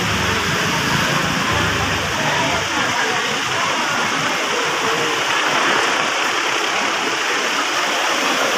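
Steady rushing background noise of a crowded venue, with a faint hubbub of many people.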